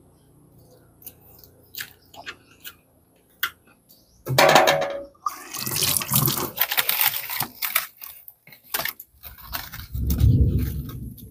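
Knife clicking and scraping on a wooden cutting board as fish are cleaned, then tap water running and splashing into a sink as the fish are rinsed by hand. Near the end there is a low thud and scrape as firewood is shifted under a pot on a wood fire.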